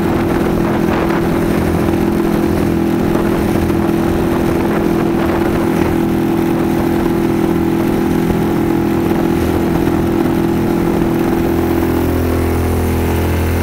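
Outboard motor running at a steady cruising speed, its pitch unchanging, with water rushing past the hull of a small boat under way.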